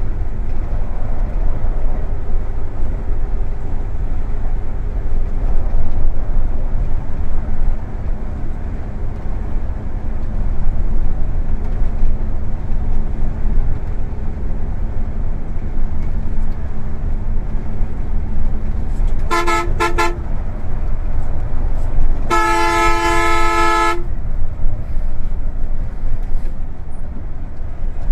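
Steady low engine and road rumble heard from inside a moving bus. About two-thirds through, a vehicle horn gives three quick toots, then one longer blast of about two seconds.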